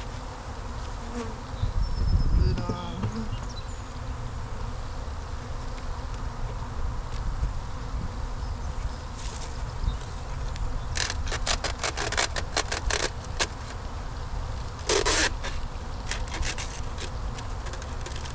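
Many Italian honey bees buzzing steadily. A run of sharp clicks and rattles comes about eleven seconds in, with a short louder rasp around fifteen seconds in.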